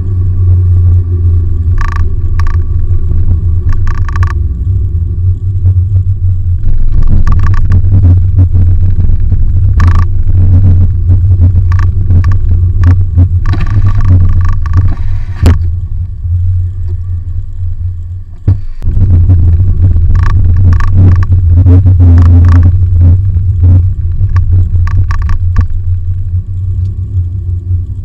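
Cabin noise of a Perodua Bezza driving at speed: its 1NR-VE dual VVT-i engine and tyres on the road make a loud, steady low rumble. The rumble drops out briefly about two-thirds of the way through, and a few short clicks sound over it.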